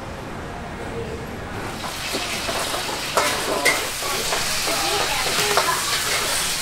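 A sizzling hiss of cooking over a charcoal stove sets in about two seconds in and carries on, with sharp metal clinks and scrapes of tongs several times.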